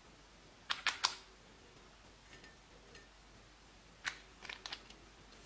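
Sharp plastic clicks from makeup containers being handled over a glass dish: three quick clicks about a second in, then a second quick cluster of clicks as a lipstick tube is handled near the end.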